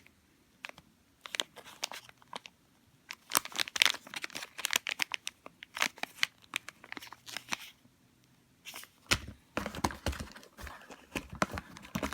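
Plastic parts bags crinkling and rustling as they are handled, in spells of sharp crackles, with a quiet pause and then a denser rustle from about nine seconds in.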